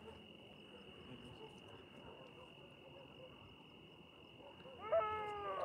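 Crickets chirping in a steady, high-pitched trill. About five seconds in, a louder drawn-out call with a slightly falling pitch cuts across it, like a distant voice or animal call.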